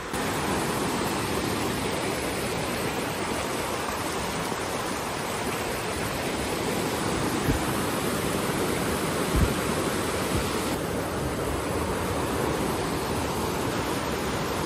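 Fast-flowing river rushing over rocks: a steady, dense wash of white-water noise, with a couple of brief low thumps around the middle.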